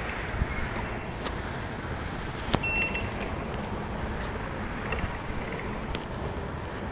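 Busy indoor background noise while walking through ticket gates, with a few sharp clicks and one short high beep about two and a half seconds in, like a gate's card reader accepting a card.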